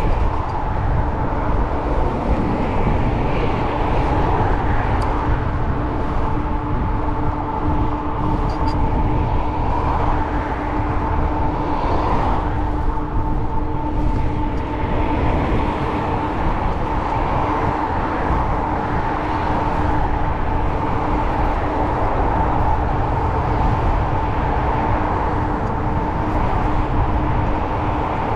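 Wind rushing over the microphone while riding a bicycle: a steady low rumble with a constant faint whine running through it.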